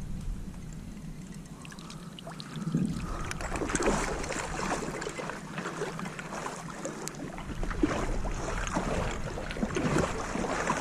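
Water splashing and sloshing in irregular strokes, starting about two and a half seconds in.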